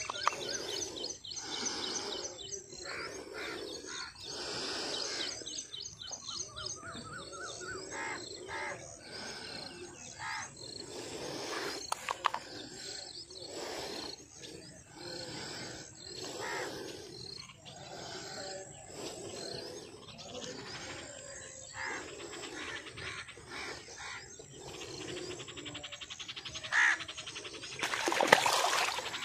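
Small birds chirping and singing in quick repeated phrases, then near the end a loud splashing as a struck fish thrashes at the water's surface.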